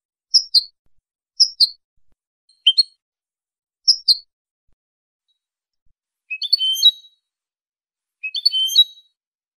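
European goldfinch calling: four short two-note chirps about a second apart, then two brief twittering song phrases in the second half, with no background noise.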